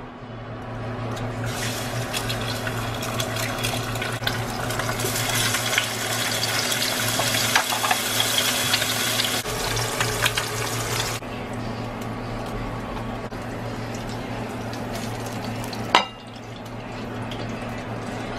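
Egg and hot dog sausage sizzling as they fry in a non-stick pan, loudest for the first half and then quieter, over a steady low hum. A single sharp knock sounds near the end.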